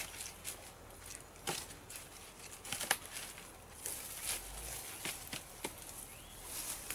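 Dead branches being laid by hand onto a wood pile: scattered light wooden knocks and clatters at irregular intervals as sticks are set against the logs.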